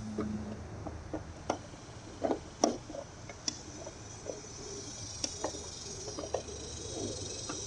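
Scattered light clicks and taps of a screw and a plastic license-plate lamp housing being handled while someone tries to fit the screw by hand, with a few sharper knocks near the middle.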